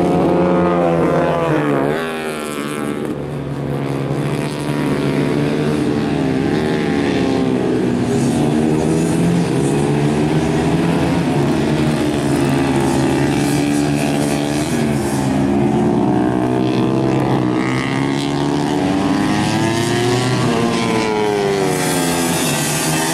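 Racing motorcycle engines revving hard through corners, pitch rising and falling with throttle and gear changes, with more than one bike heard at once at times. The sound dips briefly a couple of seconds in.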